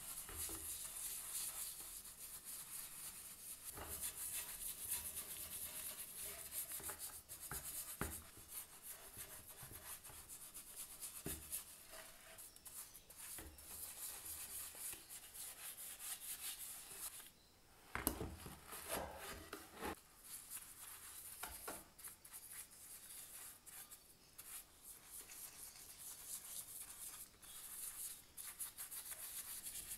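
Paintbrush bristles scrubbing degreaser over rusty, old-painted metal parts in quick back-and-forth wet strokes. There is a brief pause about two-thirds of the way through, followed by a single knock.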